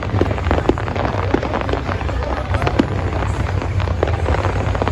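Fireworks display going off: a dense run of sharp crackling pops, several a second, over a steady low rumble.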